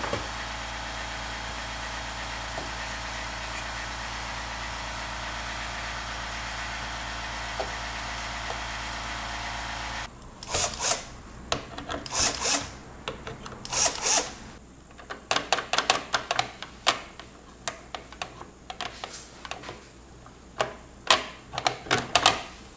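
A steady hum with a faint whine for about ten seconds that stops abruptly, then irregular clicks, knocks and scraping as hands work inside an open PC case, loosening and handling the AIO liquid cooler's pump head on the CPU.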